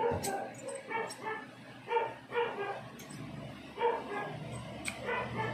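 A dog barking repeatedly in short yaps, in several quick clusters, with a couple of sharp clicks from plastic being handled.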